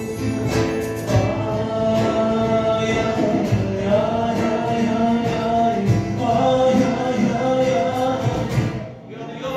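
Turkish folk ensemble performing live: bağlama and acoustic guitar strummed under voices singing together, led by a male singer, with a brief break in the playing shortly before the end.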